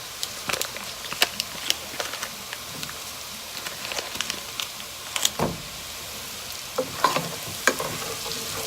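Garlic sizzling in melted butter in a pan, a steady frying hiss with frequent sharp crackles and the taps and scrapes of a utensil stirring.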